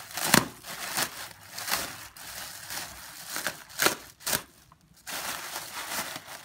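Plastic air-cushion packaging crinkling and crackling as it is cut open and pulled apart by hand, in irregular sharp crackles with a brief lull about four and a half seconds in.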